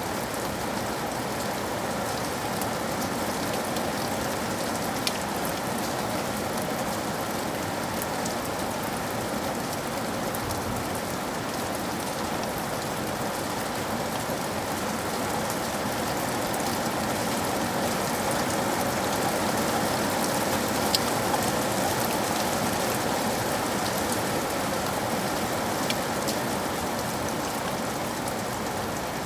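Heavy rain pattering steadily on a window pane, with scattered sharper drop ticks; it swells a little more than halfway through.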